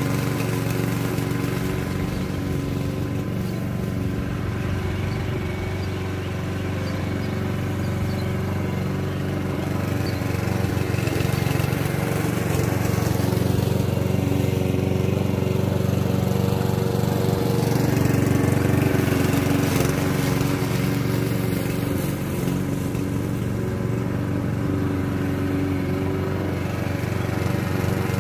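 Petrol walk-behind rotary lawn mower engine running steadily while mowing grass, getting a little louder midway as the mower passes close by.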